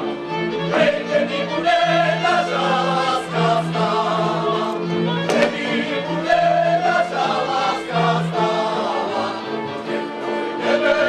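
Slovak folk song sung by a group of voices together, with a folk string band's accompaniment.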